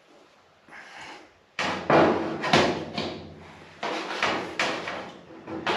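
Repeated loud scraping and clattering handling noises from hand work, starting suddenly about a second and a half in and coming in short strokes.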